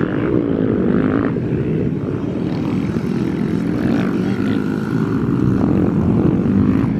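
Motor engines running steadily, with faint pitches drifting up and down.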